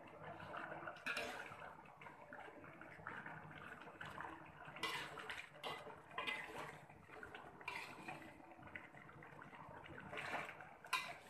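Thick yellow spice sauce bubbling and popping in a pot of simmering chicken wings as it cooks down to thicken. A few louder pops come about five seconds in and again near the end.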